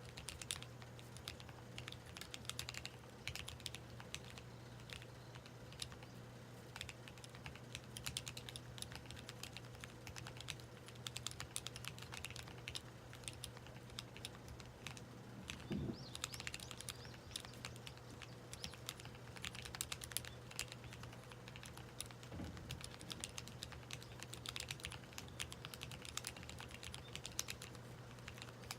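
Typing on a Corne split keyboard with lubed Tealios linear switches and JTK Aqua keycaps: a steady stream of quick key clacks, with an occasional deeper thock.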